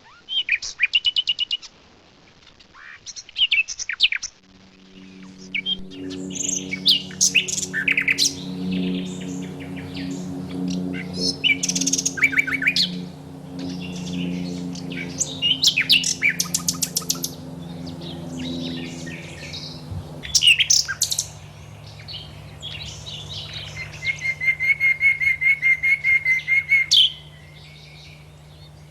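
Songbirds singing: varied bursts of high chirps and trills, ending with a long, fast trill. A steady low hum runs underneath from about four seconds in.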